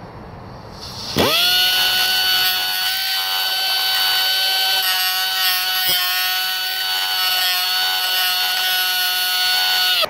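Straight cut-off tool with a thin abrasive wheel spinning up with a rising whine about a second in, then running at a steady high whine as it grinds the head off a steel door hinge pin. It stops suddenly at the end.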